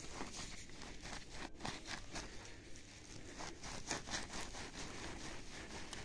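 Footsteps through dry grass, a run of irregular rustling steps.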